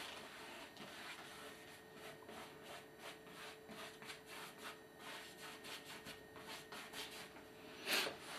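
Paintbrush scrubbing and dabbing on canvas: short, scratchy strokes, two or three a second, with one louder stroke near the end.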